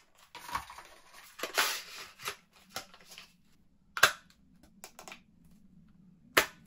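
Hands opening a cardboard phone-case box: packaging rustling and sliding for a couple of seconds, then two sharp clicks about two seconds apart.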